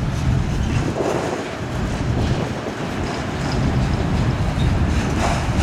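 Freight train cars rolling past: steady noise of steel wheels on the rails, with occasional clacks over rail joints.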